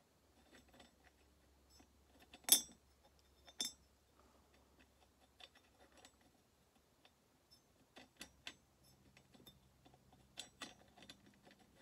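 Scattered small metal clicks and clinks of chainsaw engine parts being handled at the flywheel end of the crankshaft, with one sharp click about two and a half seconds in and a few more clustered near the end, over a faint low hum.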